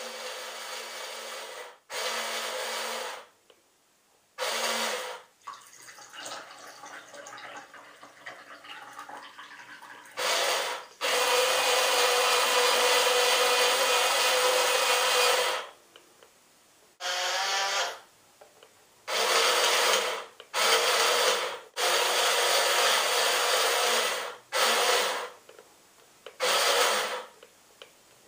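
Small geared electric motors of a toy remote-control robot arm whirring in start-stop bursts as the arm moves, most lasting about a second, one about four seconds long, with fainter grinding between them.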